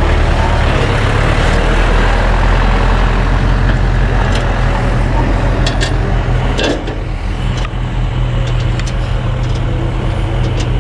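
Road roller's diesel engine running at a steady idle, with a few sharp metallic clicks near the middle as parts in the engine bay are handled.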